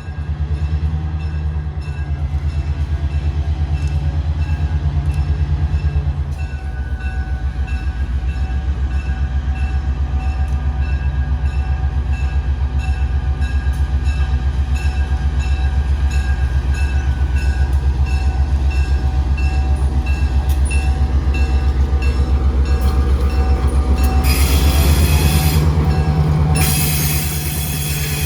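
Large diesel engine running steadily with a heavy, rapidly pulsing rumble. Near the end a loud hiss starts.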